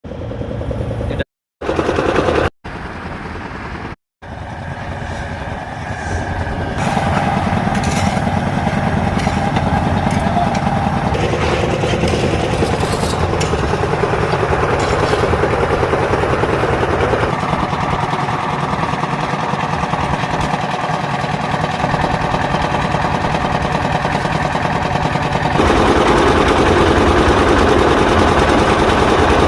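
Engines of asphalt road-building machinery running steadily, heard in several short clips with abrupt cuts between them and brief dropouts in the first few seconds.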